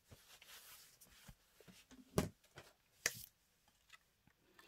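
Quiet handling of things on a craft desk: faint rustling, then two sharp taps about a second apart.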